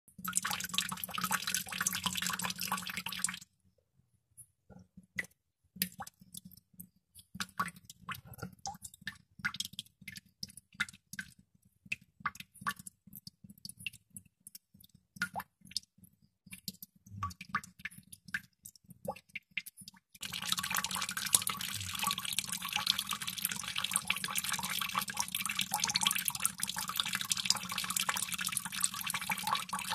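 Water droplets dripping. It starts as fast, dense dripping, thins after a few seconds into single drops falling one by one, and turns back into fast, dense dripping about two-thirds of the way through.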